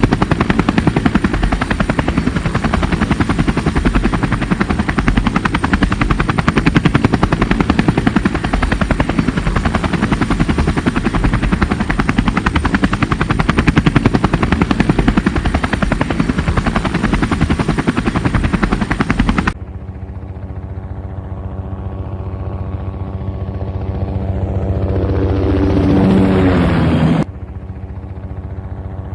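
Rapid, even chop of helicopter rotor blades, loud and steady, which cuts off abruptly about two-thirds of the way through. A quieter steady hum of several tones follows, with a swelling sweep over it that stops suddenly near the end, and the hum then carries on.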